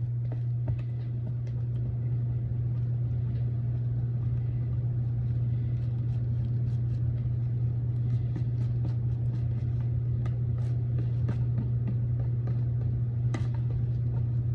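Slime being stirred by hand in a bowl: faint scattered clicks and scrapes over a steady low hum.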